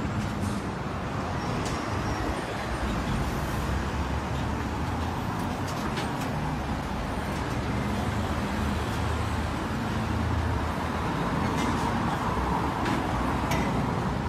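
Steady street traffic noise: road vehicles running past, with a low engine rumble that swells and fades as they go by.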